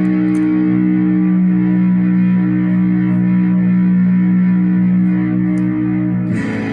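Electric guitar played through a Zoia patch emulating the Holy Island Audio Tides v2 gain and reverb pedal: a driven chord held and sustaining, then a new chord struck near the end.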